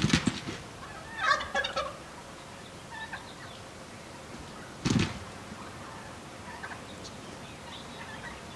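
Gould's wild turkey toms gobbling: a loud burst right at the start, a fast rattling gobble about a second and a half in, another loud burst about five seconds in, and fainter short calls between.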